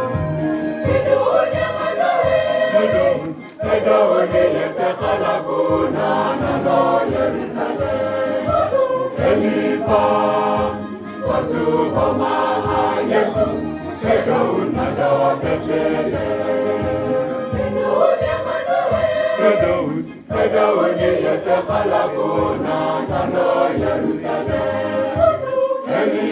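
A church choir singing a Christmas carol in several voice parts, with brief pauses between phrases about three and a half and twenty seconds in.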